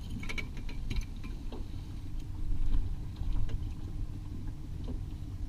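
Steady low hum of a trolling boat's motor, with scattered light clicks and taps from a landed cutthroat trout being handled in a landing net on an aluminum boat floor.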